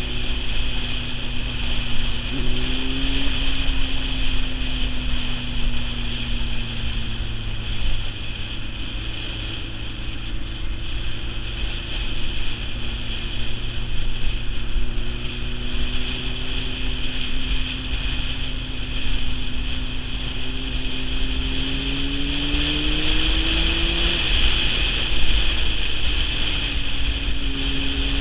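Sport motorcycle's engine running on the road, its pitch shifting with the throttle and climbing, then dropping, about three-quarters of the way through, under heavy wind noise on the microphone.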